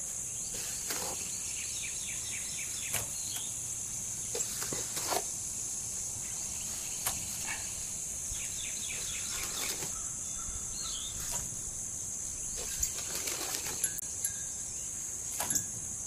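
Steady high-pitched insect chorus, with scattered short scrapes and pats as wet Portland cement is scooped and spread into a dish mould; a bird chirps briefly.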